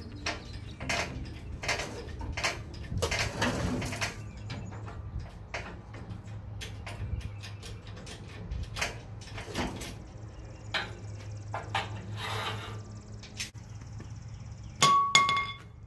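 Chains clinking and scattered metal clicks and knocks as an engine hanging from an engine hoist is lifted and moved, over a steady low hum. A short metallic ring comes near the end.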